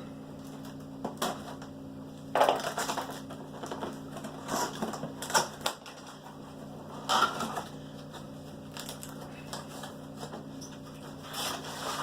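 Sealed laptop packaging being torn open and handled, in irregular crinkling and crackling bursts, the loudest about two and a half, five and seven seconds in, over a steady low hum.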